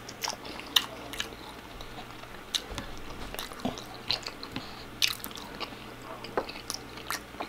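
A person eating close to the microphone: biting and chewing, with sharp crisp crunches about once a second.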